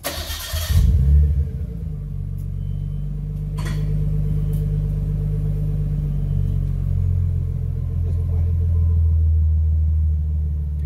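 Nissan Skyline R32 GTS-t's RB20DET turbocharged inline-six starting up through its HKS Hi-Power exhaust, mid muffler still in place: a short burst as it catches, a brief flare about a second in, then a steady idle.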